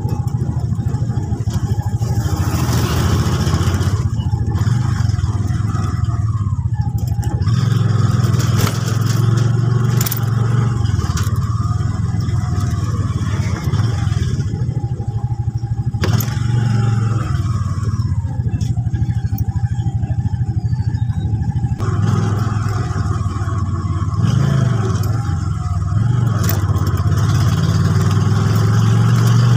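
Motorcycle engine running while riding along a street; its low steady hum rises and falls with the throttle a few times, with a few sharp clicks.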